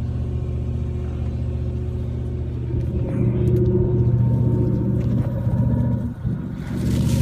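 Inboard engine of a 2013 Tige RZ2 wakeboard boat running steadily at idle on its trailer, after about 15 to 20 minutes of running. It grows louder about three seconds in and dips briefly near the end.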